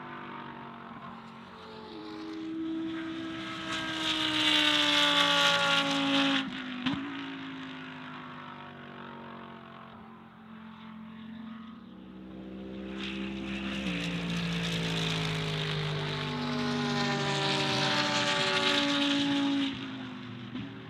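GT race cars passing at speed, twice: each engine note grows louder, falls in pitch as the car goes by, then cuts off suddenly, the first about six and a half seconds in and the second near the end.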